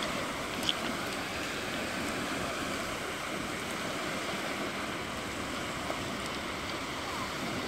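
Small waves washing onto a pebble shore, a steady rushing hiss, with one sharp click under a second in.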